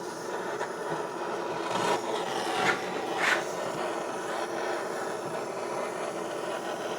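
Torch flame running steadily as it heats the aluminium engine crankcase around a bearing bore, to expand it for a tight bearing fit. Two brief louder scraping sounds come about three seconds in.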